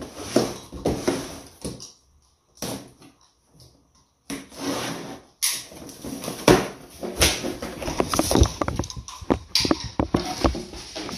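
A safety knife slitting the packing tape along the top of a cardboard box in several separate scraping strokes, then the cardboard flaps rubbing, scraping and knocking as they are pulled open.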